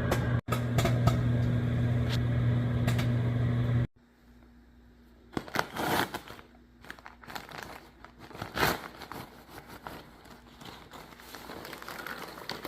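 Microwave oven running with a steady hum, with popcorn kernels popping over it, cutting off abruptly about four seconds in. Then quieter crinkling and rustling of paper, like a popcorn bag being handled.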